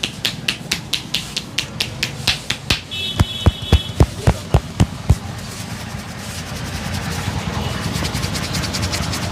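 Hands slapping and tapping a person's head in a head massage: crisp, even slaps about four a second, turning near three seconds in to heavier, deeper thumps at the same pace for about two seconds, then a steady rubbing noise that slowly grows louder.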